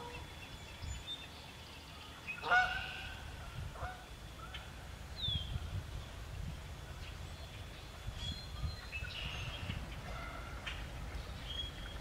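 Canada geese honking several times, the loudest call about two and a half seconds in and a cluster of calls around nine to eleven seconds in. A small bird gives a short falling chirp near the middle, over a low rumble.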